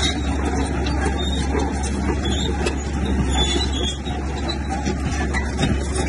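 Bulldozer's diesel engine running steadily.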